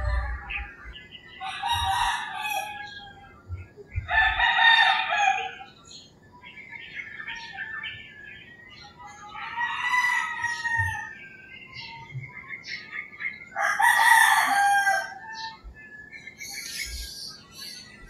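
Roosters crowing, four crows a few seconds apart, with smaller birds chirping faintly between them.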